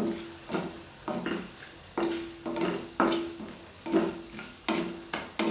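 Wooden spatula scraping and knocking around a kadhai, stirring chana dal, urad dal and dried red chillies frying in a little oil, over a faint sizzle. The strokes come about every half second, slightly uneven, and the pan rings briefly on several of them. This is the tempering stage, with the dals being fried until brown.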